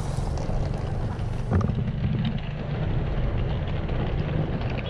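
Steady low rumble of cars running in a drop-off lane, mixed with wind buffeting the microphone, and a single short knock about a second and a half in.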